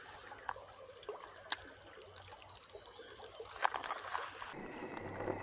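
Shallow stream flowing, a steady wash of water with a few sharp clicks. About four and a half seconds in, the sound cuts suddenly to a duller, muffled background.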